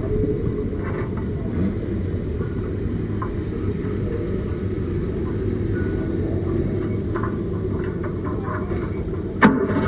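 Race car's engine idling steadily, heard from inside the cockpit while the car sits stationary. A single sharp knock sounds near the end.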